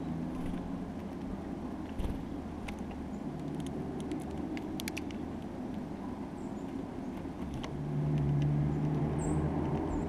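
A low, steady rumble of distant road traffic that swells near the end. Mid-way, a cluster of sharp clicks comes from small birds picking at and cracking sunflower seeds right at the microphone. A couple of faint, short, high bird chirps come near the end.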